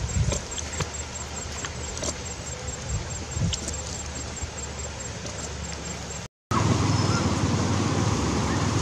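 A small knife slicing ginger on a wooden board: a few sharp taps of the blade against the board over a low rumble. About six seconds in the sound changes abruptly to a pan of water at a rolling boil, a steady, louder bubbling hiss.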